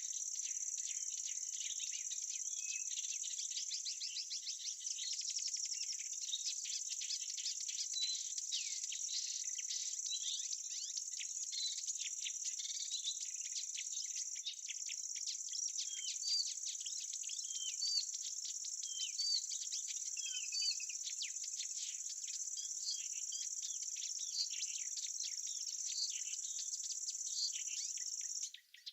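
A continuous high-pitched drone of insects such as crickets or cicadas, with birds chirping through it; the drone cuts off just before the end.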